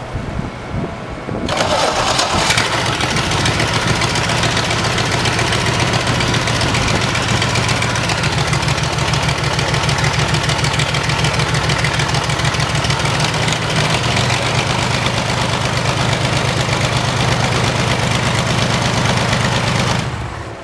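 ULPower UL520iS six-cylinder horizontally opposed aircraft engine catching about a second and a half in on its first start, then running steadily while turning its propeller. It cuts off abruptly about 20 seconds in.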